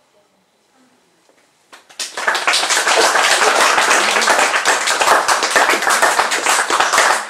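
Near silence for about two seconds, then an audience breaks into loud, steady applause.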